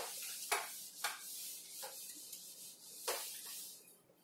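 Whiteboard duster wiping marker writing off a whiteboard, in a series of short rubbing strokes with brief pauses between them.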